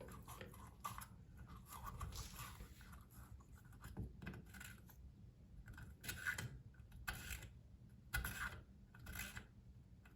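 Faint, irregular scraping and small clicks of long-nose pliers working in the grooves of a faucet cartridge extension as it is turned.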